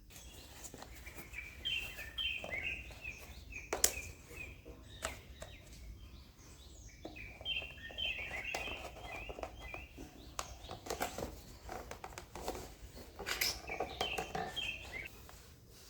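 Small birds chirping in quick repeated short notes, with scattered sharp clicks and knocks and a low steady hum underneath.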